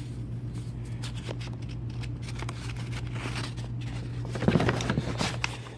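Paper rustling and small clicks as a receipt and small cards are handled, over a steady low hum; the handling gets louder about four and a half seconds in.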